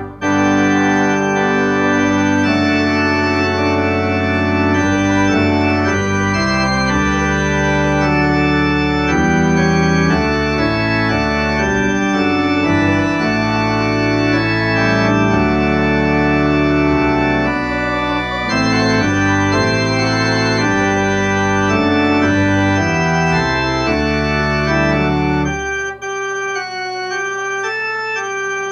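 Church organ playing slow, sustained chords that change every second or so, over deep pedal bass notes. Near the end the bass drops out, leaving softer, higher chords.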